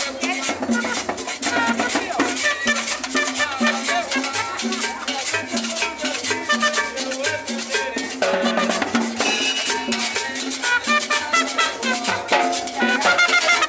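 Live Latin dance band playing an up-tempo tune, with timbales and other percussion sounding steady sharp strokes through the music.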